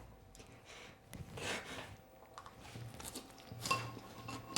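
A child chewing a mouthful of crunchy breakfast cereal: a few quiet, irregular crunches.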